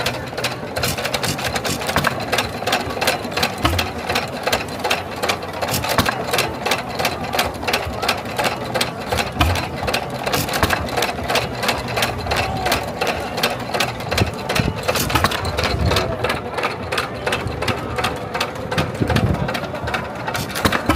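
A machine or engine running with a fast, even clatter of several strokes a second.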